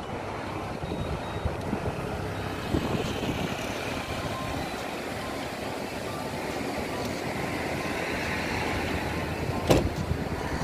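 Steady noise of surf breaking on a beach, mixed with wind rushing over the microphone. There is a single sharp knock near the end.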